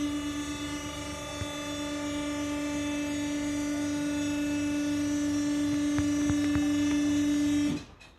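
A motor running with a steady hum: one strong, even tone with a faint regular low pulsing beneath it. It shuts off suddenly near the end, its pitch dropping briefly as it stops.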